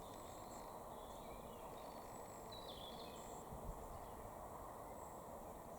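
Faint outdoor field ambience: a steady low background hiss with scattered, faint bird chirps high above it.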